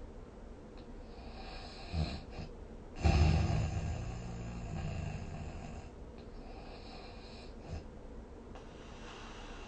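A sleeping person snoring. There is a short snort about two seconds in, then a loud snore about a second later that fades over a couple of seconds, with quieter breathing noises before and after.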